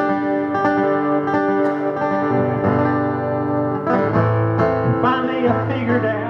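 Live acoustic guitar music: strummed guitar chords ringing through an instrumental passage of a soft-rock song, with a wavering melodic line over them in the second half.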